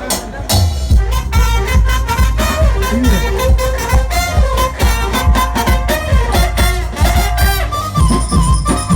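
Loud dance music: a heavy, pulsing bass beat comes in about half a second in, under a fast, ornamented melody that runs quickly up and down.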